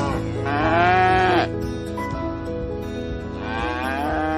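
Cattle mooing: two drawn-out calls that rise and fall in pitch, the first about half a second in and louder, the second starting near the end, over steady background music.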